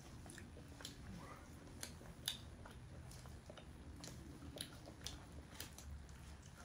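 Faint close-up eating sounds of roast chicken being chewed, its skin crispy: scattered small mouth clicks and smacks, a few sharper ones.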